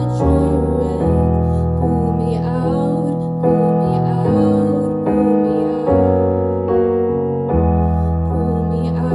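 A piano playing slow, held chords, a new chord about every second, in the instrumental accompaniment of a ballad.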